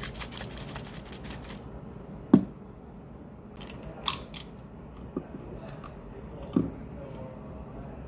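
Aluminium coffee can being shaken in the hand, a quick run of clicks for the first second and a half, then set down on a wooden desk with a sharp knock. About four seconds in, the ring-pull tab is lifted and the can cracks open with a short sharp pop. A couple of lighter knocks on the desk follow.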